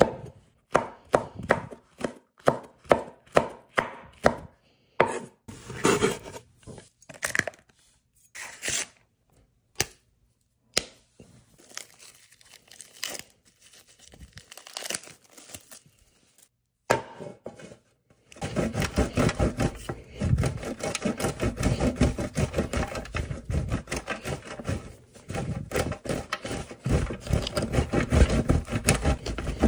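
Knife chopping food on a cutting board, first in steady strokes about two to three a second. After a stretch of scattered, quieter handling sounds, fast rapid chopping starts about eighteen seconds in and runs on.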